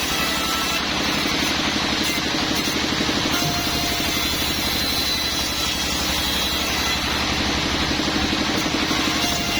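Sawmill machinery running steadily: a constant engine-like drone with a fast, even pulse.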